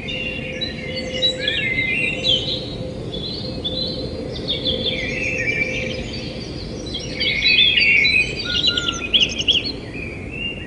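Several birds chirping and trilling over one another, with a faint steady hum underneath.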